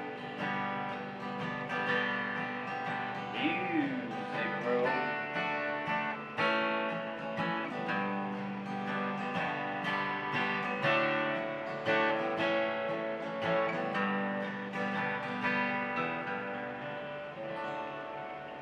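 Acoustic guitar strummed and picked through an instrumental passage of a country song, slowly getting quieter toward the end.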